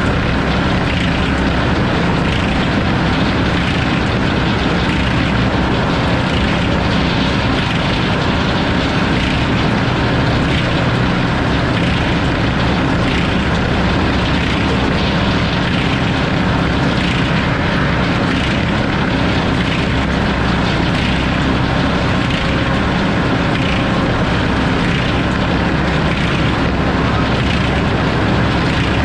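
Sawmill running, its saw cutting through a hardwood log: a loud, steady machine noise with no breaks.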